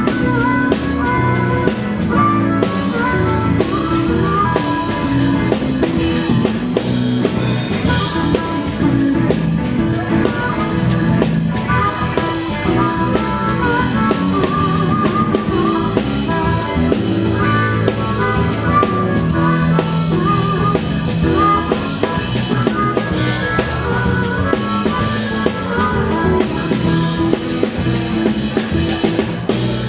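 Live rock band playing an instrumental passage: drum kit, electric guitars, bass and keyboards, with a harmonica played into a microphone.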